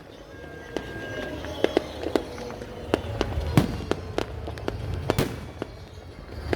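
Fireworks going off: a string of sharp bangs and pops at irregular intervals over a low rumble.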